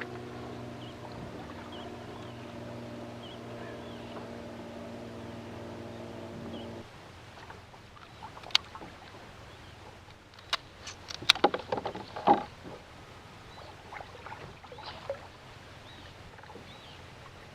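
A steady motor hum made of several even tones, cutting off abruptly about seven seconds in, followed by a run of sharp clicks and knocks.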